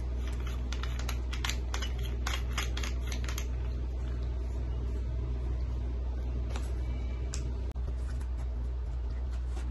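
Light clicks and rattles from a small hatchet with a black tubular handle being handled and fitted together. The clicks come in a quick run over the first few seconds, with a few more near the end. A steady low hum runs underneath.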